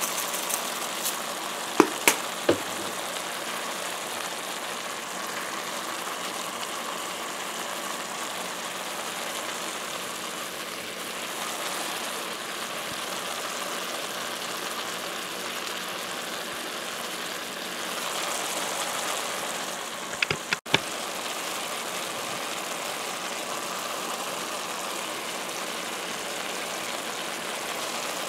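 Fish, onions and ginger sizzling steadily in sauce in a metal wok, with a few sharp clicks about two seconds in and again around twenty seconds in.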